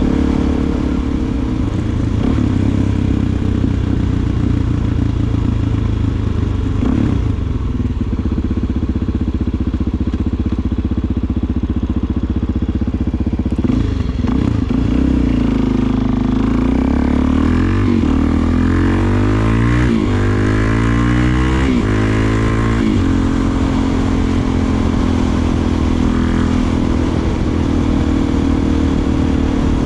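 Suzuki DR-Z400SM's single-cylinder four-stroke engine running through a Delkevic aftermarket exhaust while riding. It holds a steady note, eases off about halfway through, then accelerates up through several gears, the pitch rising again and again, before settling back to a steady cruise.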